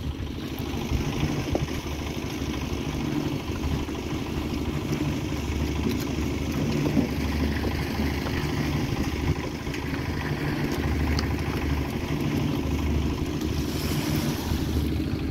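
A small engine running steadily, its low hum swelling and fading every second or so, with faint clatter from work going on around it.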